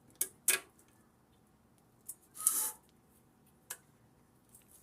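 Small metal clicks and a short scrape, about two and a half seconds in, as screws are fitted into an industrial vacuum motor's housing.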